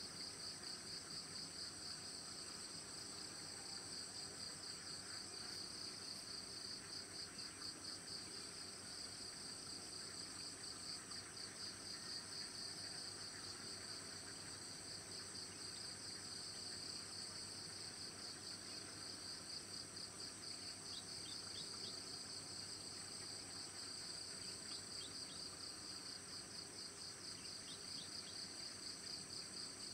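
Faint insect chorus: a steady high pulsing trill over a continuous higher-pitched buzz, with a few brief high chirps near the end.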